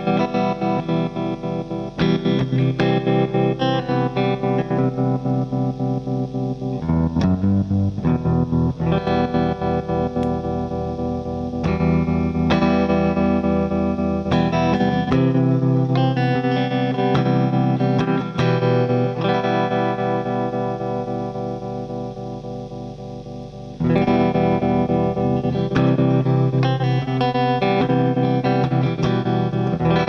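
Electric guitar chords played through a Tonepad Pulsar, a DIY clone of the 1970s Electro-Harmonix Pulsar tremolo pedal, the volume pulsing rapidly and evenly. Chords are struck several times and left to ring and fade, with a long fade that ends in a fresh strum about three-quarters of the way through.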